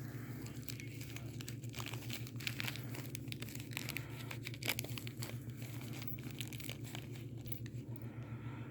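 Rustling and crinkling with many small clicks as hands sort through small ignition-cylinder tumblers and their packaging, over a steady low hum; one sharper click a little under five seconds in.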